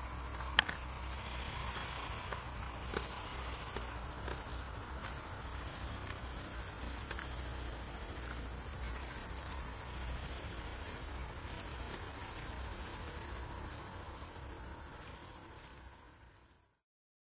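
Singing insect, a continuous high-pitched rapid trill like a cricket's, with one sharp click about half a second in. It fades out and stops near the end.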